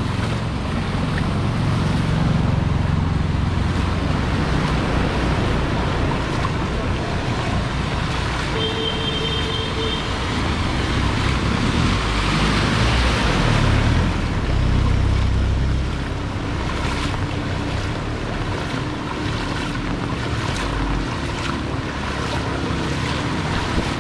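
Vehicles driving through shallow floodwater: engines running and wheels churning and splashing the water. A passenger jeepney ploughing through makes the loudest splashing wash with engine rumble about halfway through, and a brief high beep sounds a little before it.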